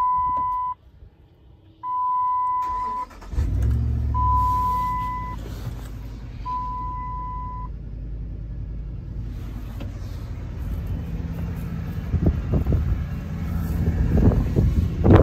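A 2008 Dodge Ram 1500's 5.7-litre HEMI V8 starts about three seconds in, catching at once and settling into a steady idle. A warning chime beeps four times, about two seconds apart, over the start. A few knocks sound near the end.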